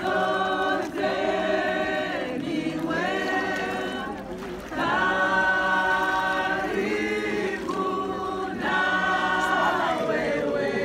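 A group of voices singing together in long held notes, phrase after phrase with short breaks between them.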